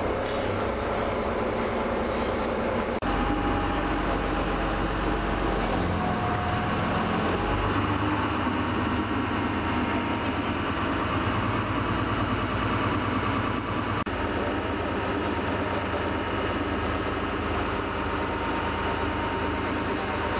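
Boat engine running steadily with a low drone; the sound shifts abruptly about three seconds in and again about fourteen seconds in.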